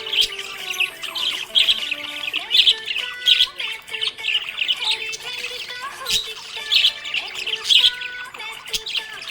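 Budgie chirping and warbling: a dense, continuous chatter of quick high chirps mixed with harsher squawks.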